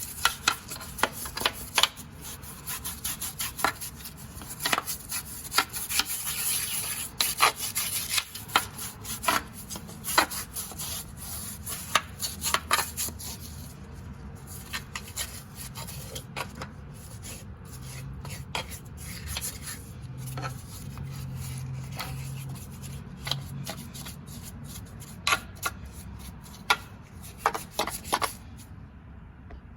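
Hand work on a lathe's gearbox: steady rubbing and scraping, broken by many small clicks and knocks as parts are handled.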